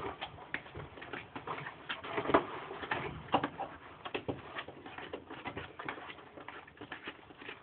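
Irregular light clicks and knocks of a hand wrench or socket on a small engine's cylinder head bolts as they are tightened.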